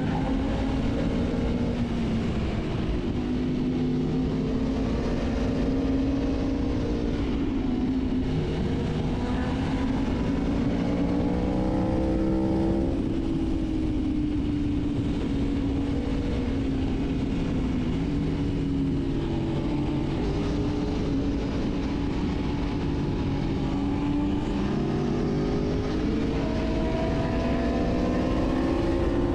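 Aprilia Tuono V4 1100 Factory's V4 engine under way at speed, its pitch climbing with the throttle and dropping back several times, over a steady rush of wind.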